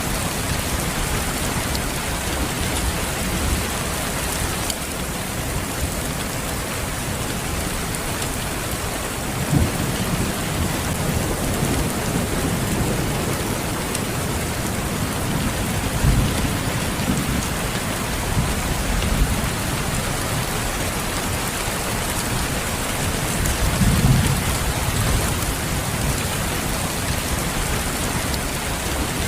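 Steady rain falling, with low rumbles of thunder swelling up three times: about a third of the way in, past the middle, and near the end.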